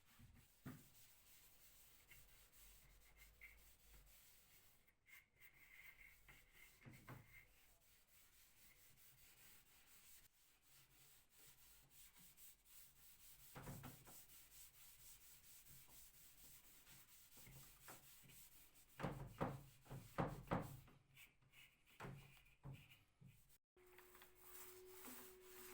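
Faint rubbing on wood, like hand sanding or cloth work on a furniture surface. A few light knocks come in a cluster about three-quarters of the way through.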